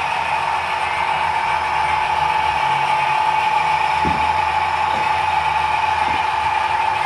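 HO scale model coal train running past: the ScaleTrains GE C39-8's LokSound decoder plays a steady diesel engine sound over the running noise of the hopper cars' wheels on the track, with a few light clicks in the second half.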